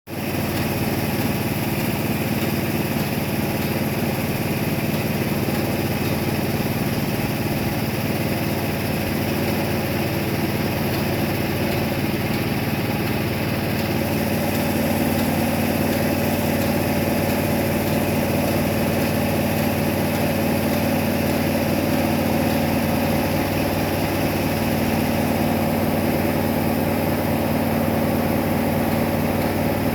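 Pressure washer's engine running steadily, a little louder from about halfway.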